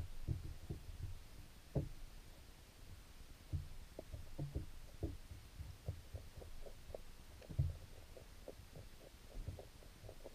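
Creek water heard underwater through a camera's waterproof housing: a muffled low rumble with irregular soft knocks, the loudest just under two seconds in and about three-quarters of the way through.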